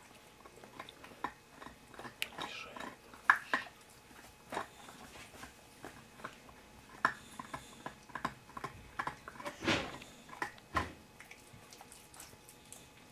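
A Russian Toy Terrier puppy gnawing on a long chew stick: irregular crunches and clicks of teeth on the stick, with a longer, louder scraping crunch about ten seconds in.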